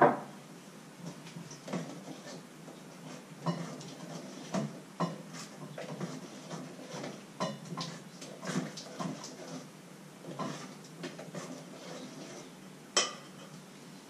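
Kitchenware being handled: a loud knock at the start, like a mug set down on the counter, then irregular clinks and knocks of pots, lids and utensils, with one sharp clink near the end.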